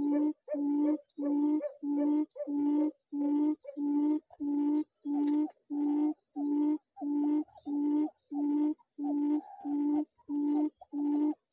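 Quail calling: one short, low hooting note repeated evenly a little under twice a second, with no break.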